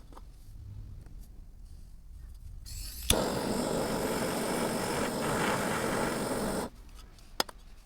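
A steady rushing, hiss-like noise for about four seconds that starts with a click about three seconds in and stops suddenly, then a single click near the end.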